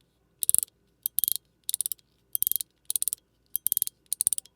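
PEI mechanical fidget slider (Cyber EDC Phase) being snapped along its detent track. It gives short bursts of several sharp clicks, about twice a second, as it drops into an indent and then travels a little.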